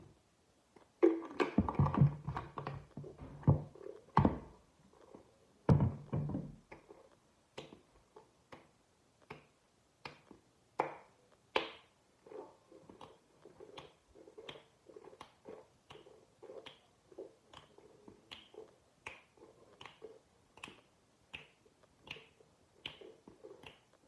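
Listerine mouthwash being swished around a closed mouth: loud irregular sloshing for the first few seconds, then a steady rhythm of short squishes, a little under two a second.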